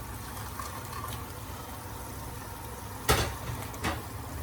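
Kitchen pan sounds: a sharp knock about three seconds in and a lighter one a moment later, over a steady low hum.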